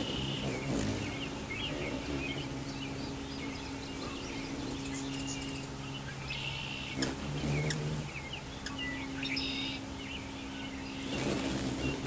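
Hummingbirds at a nectar feeder making rapid, short, high chips and squeaks, with a couple of longer buzzy chatters. A steady low hum runs underneath.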